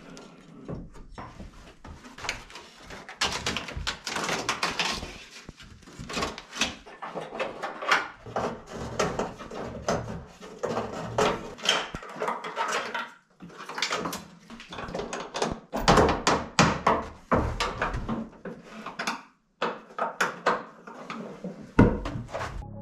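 Repeated clicks, knocks and metal rattles of hand work on a Nissan Skyline R33's trunk lid: the liner pulled off and the hinge worked with a hand tool before the lid is lifted away.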